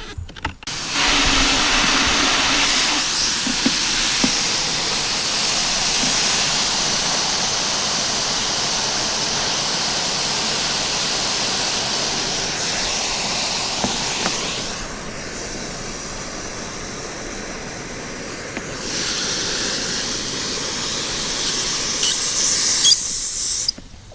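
Water spraying from a garden hose into a kayak's hull during a leak test: a steady hiss that starts and stops abruptly, softer for a few seconds past the middle.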